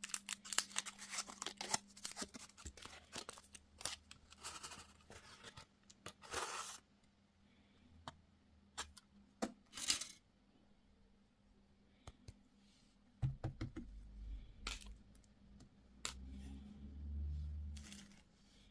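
Close-miked mukbang eating and handling sounds: a dense run of crisp crackles and clicks, a few louder separate crackles, then quieter clicks and low dull thumps near the end. A faint steady low hum sits underneath.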